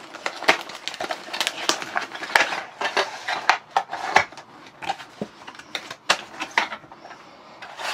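Cardboard box and clear plastic blister packaging of a headlamp being handled and slid apart: a quick run of crinkles, scrapes and taps that thins out near the end.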